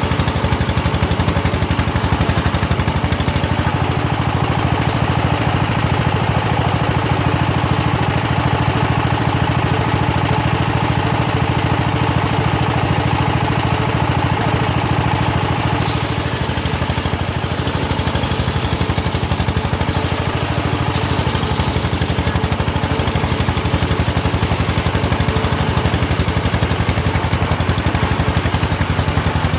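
Homemade engine-driven circular saw rig running steadily with a low, even engine drone. A higher hiss comes in for several seconds midway, as the blade works through hard teak.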